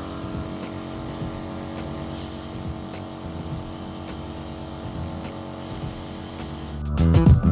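Agaro NB-22 compressor nebulizer switched on and running: a steady mechanical hum from its compressor motor.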